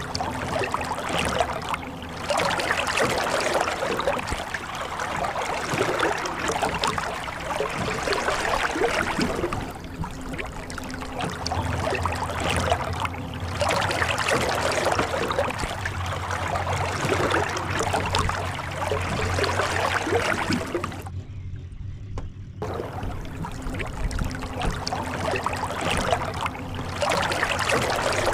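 Moving water splashing and gurgling steadily in uneven surges, over a faint low hum. The sound cuts out for about a second and a half about three-quarters of the way through.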